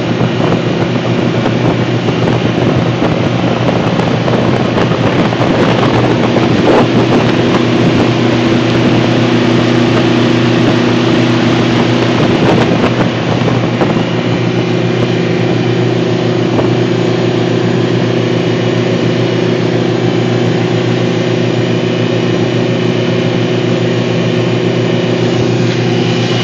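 Engine of an Alusafe 580 rescue boat running steadily under way, with the rush of water and wind on the microphone. The wind and water noise eases a little about halfway through while the engine note holds steady.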